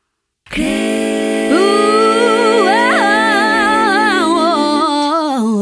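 Sung vocal music after a brief silence: held notes in several voices, joined about a second and a half in by a voice sliding up to a high note with vibrato, then dropping to a lower wavering note near the end.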